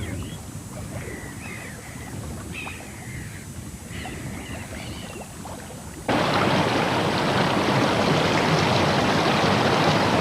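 Small birds chirping in short, repeated calls that slide in pitch, over a low rumble. About six seconds in, a sudden cut to louder, steady rushing water.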